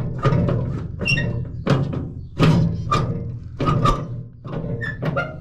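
Background music with a percussive beat of sharp hits about every half second over a steady low bass.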